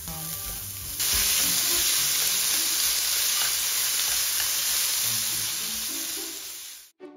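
Julienned carrots and then burdock root strips sizzling as they stir-fry in an oiled frying pan. The sizzling gets louder about a second in, holds steady, and fades out near the end.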